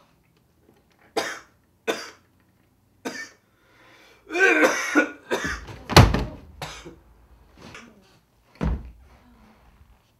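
A man coughing three times, then letting out a longer strained, choking groan, followed by a heavy thump about six seconds in and another near the end, as of a body falling to the floor.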